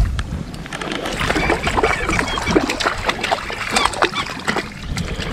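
Irregular splashing and sloshing at the river surface as a hooked trout is landed by hand.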